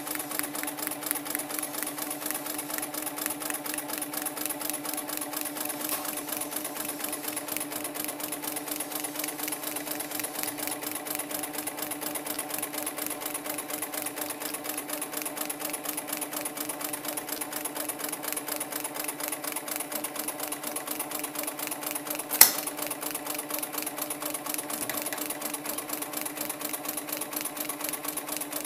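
HIGHTEX automatic pattern sewing machine stitching a holster piece held in a template clamp: a rapid, even run of needle strokes over a steady motor hum. A single sharp click sounds once, about three-quarters of the way through.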